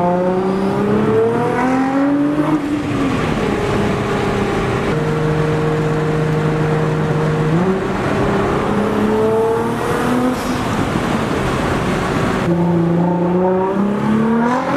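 A car engine accelerating hard, heard from inside the car. Its pitch climbs, drops at a gear change about two and a half seconds in, holds steady for a few seconds, then climbs again and drops at another shift near the end.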